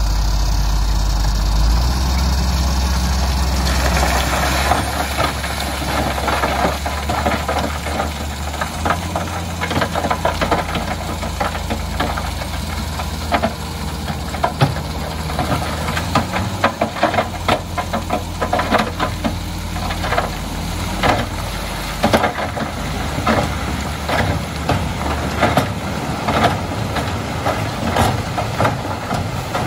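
Heavy dump truck's diesel engine running steadily, its note stepping up twice in the first ten seconds as the tipper bed is hoisted. From about four seconds in, a dumped load of crushed rock clatters and knocks as the stones tumble out of the bed and slide down the embankment.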